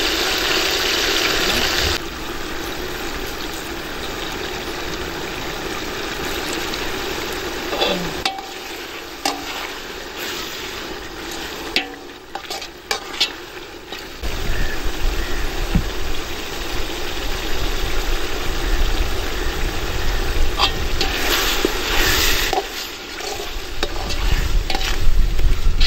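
Onion, garlic, chillies, tomato and curry leaves sizzling in oil in a large aluminium pot, with a metal utensil stirring and scraping and knocking against the pot. A low rumble joins the sizzle about halfway through.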